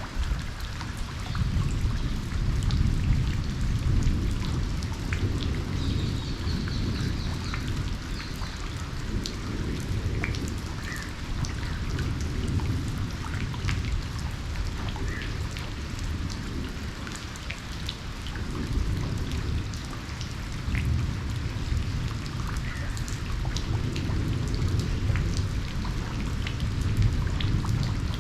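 Steady rain falling, with many sharp drop hits close by and a low rumble of thunder that swells and fades underneath, strongest about three seconds in and again near the end.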